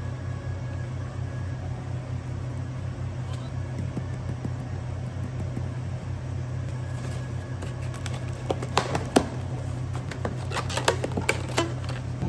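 Cafe drink-making: a steady low machine hum throughout, with a quick run of sharp clicks and clinks of cups and tools being handled from about two-thirds of the way in.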